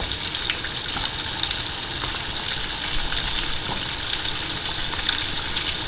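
Breaded jumbo shrimp deep-frying in hot lard in a saucepan: a steady sizzle with small, scattered crackles.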